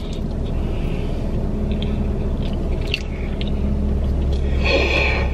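Close-up chewing of a soft, iced piece of fried birthday cake, with a few faint wet clicks, over a steady low rumble inside a car with the engine or climate fan running. Near the end comes a brief hummed 'mmm'.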